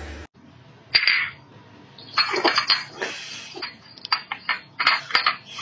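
A kitten eating fried egg off a plate: an irregular run of short, wet chewing and lapping clicks.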